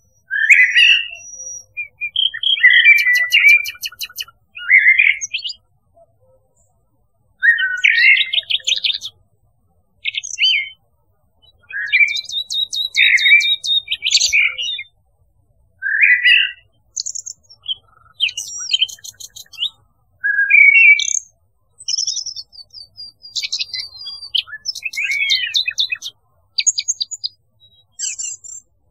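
Common nightingale and Eurasian blackbird singing: short whistled phrases alternating with rapid repeated trills, with brief pauses between phrases.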